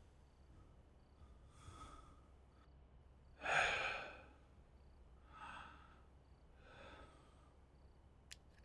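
A man breathing heavily and sighing, with one louder exhale about three and a half seconds in and softer breaths around it. There is a faint click near the end.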